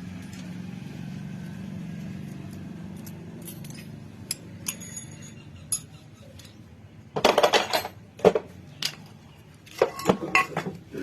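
Small metal parts of a mixer grinder motor clinking and knocking as they are handled and set aside on a work surface, with a louder clatter about seven seconds in. A low steady hum sits under the first few seconds.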